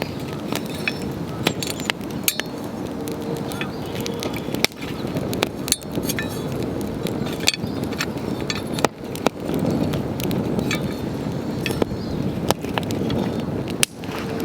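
Wood campfire burning, crackling with frequent sharp, irregular pops over a steady low rushing sound.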